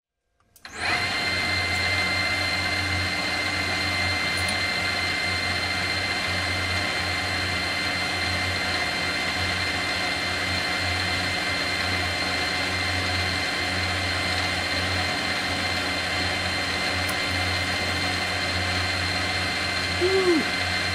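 Metal lathe running with a steady high whine while a center drill in the tailstock chuck cuts into the end of a stainless steel motor shaft. It starts about a second in. The spindle is too fast for the stainless, and the cut heats up quickly.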